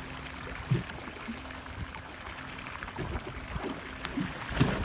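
Sea water sloshing and lapping against a boat's hull, a steady wash with a few short dull thumps.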